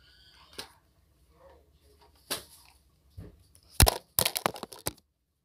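Handling noise close to the microphone: a series of short knocks and clicks, the loudest a little under four seconds in, followed by a quick run of clicks that cuts off suddenly.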